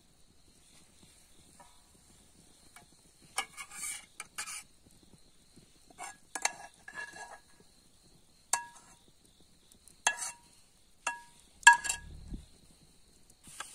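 A metal utensil clinking and scraping against a metal cooking pot: a cluster of knocks, then single ringing clinks every second or two, with the loudest near the end.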